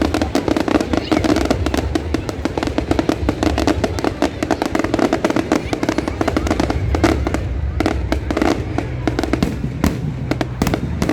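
Aerial fireworks going off in a dense, rapid barrage of sharp bangs and crackles, many reports a second without a break, over a steady low rumble.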